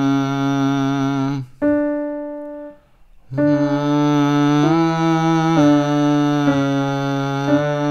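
A man hums a stepwise warm-up pattern on a closed 'm' over a keyboard. About a second and a half in the phrase ends and a single keyboard note sounds and fades out. After a brief pause the hum starts the pattern again a semitone higher, stepping from note to note.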